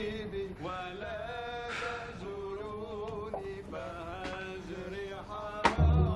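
Background music: a single wavering melody line, sustained and sliding between notes, with a dull thump near the end.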